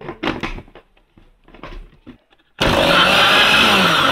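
A few plastic knocks and clicks as the lid is fitted onto a blender jar. About 2.6 seconds in, the electric countertop blender switches on and runs loud and steady, puréeing chopped tomatoes and lemon into juice.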